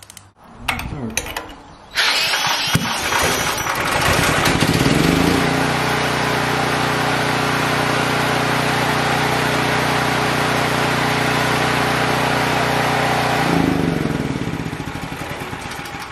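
A cordless drill spins the crankshaft of a large single-cylinder generator engine through a ratchet adapter and socket. The engine fires about two seconds in, revs up and settles into steady running, then winds down near the end.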